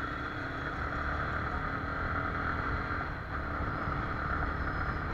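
Yamaha R15 V3's 155 cc single-cylinder engine running steadily under way, mixed with road and wind noise on the action camera's microphone.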